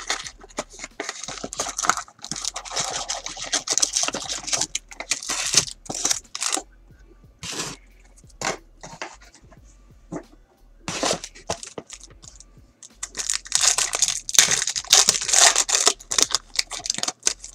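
Cardboard box flaps being pulled open and foil trading-card packs rustling, with scattered clicks of handling. Near the end a foil card pack wrapper is torn open and crinkled for about four seconds.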